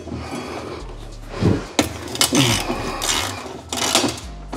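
Hand tools knocking and scraping against metal under a car as an exhaust tip is taken off, with a handful of irregular clinks and scrapes.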